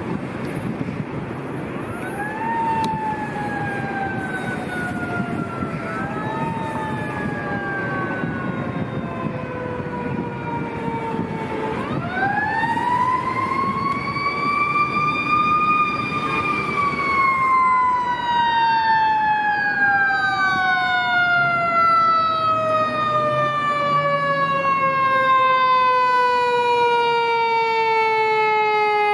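Fire engine siren wailing as the engine approaches, growing louder. It gives two short rises that each sink slowly, then about twelve seconds in a long rise that peaks and winds slowly down through the rest, over steady traffic noise.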